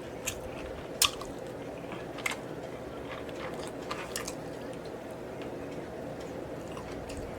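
Close-miked chewing and wet mouth sounds of someone eating, with a few sharp smacks, the loudest about a second in.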